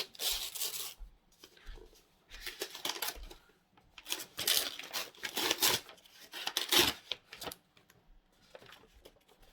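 Paper wrapping being torn and crinkled off a book by hand, in several rustling bursts.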